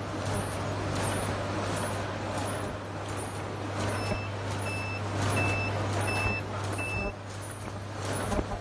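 Side-sealing zipper bag making machine running, a steady hum under the busy clatter of its sealing and cutting cycle. From about four seconds in, five short high beeps sound about half a second apart.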